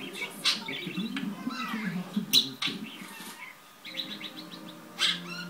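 Budgerigar warbling and chattering: a quick run of chirps, clicks and short rising-and-falling whistles, with a short lull a little before four seconds in.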